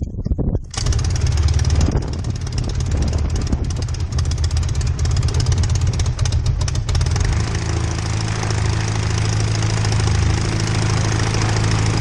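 Fisher FP-404 ultralight biplane's Rotax two-stroke engine, hand-propped, catching under a second in and running with the propeller turning: uneven at first, settling to a steadier run from about seven seconds in.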